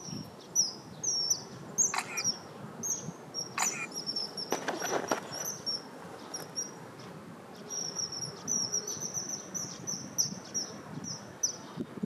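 Common kingfisher calling: thin, high-pitched piping notes, each short and sliding downward, repeated in quick series that come thickest in the second half. A few brief knocks or rustles about two, three and a half, and five seconds in.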